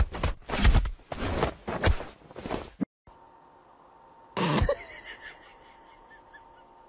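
A cat making short, rough vocal bursts, one after another, which stop suddenly; about four and a half seconds in comes a single brief call that falls in pitch, over a faint steady hum.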